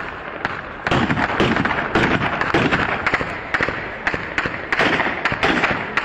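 Gunfire from a tribal clash: many shots in quick succession, some in rapid strings, each trailing a short echo.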